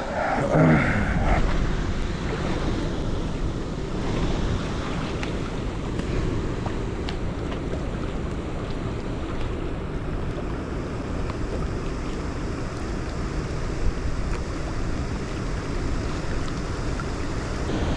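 Strong wind buffeting the microphone as a steady rumbling rush, with wind-driven waves lapping against a rocky rip-rap bank.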